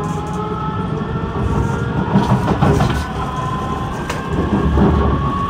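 Kawasaki C151 MRT train heard from inside the car: the traction motors whine, rising slowly in pitch as the train gathers speed, over a steady wheel-and-track rumble with a few sharp clicks.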